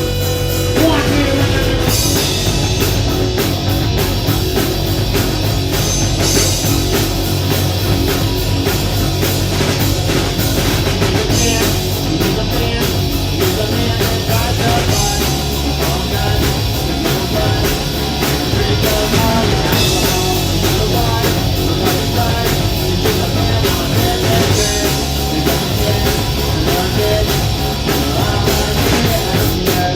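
Rock band playing loud: electric guitar over a drum kit, steady and unbroken.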